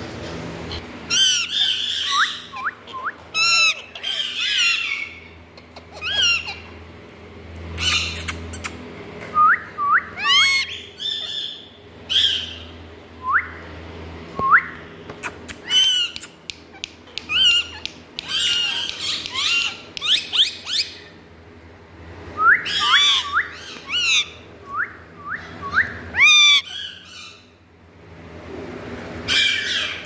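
Indian ringneck parakeets calling: repeated harsh squawks and quick rising chirps, coming in clusters with short pauses between.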